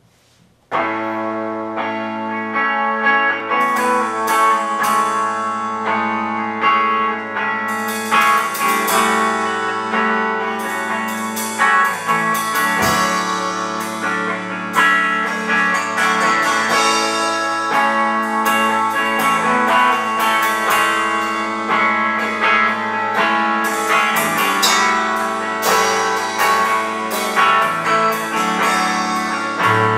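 Live rock band playing an instrumental passage: a hollow-body electric guitar and electric bass start about a second in, and a Mapex drum kit comes in a few seconds later with cymbal and drum strikes as the full band plays on.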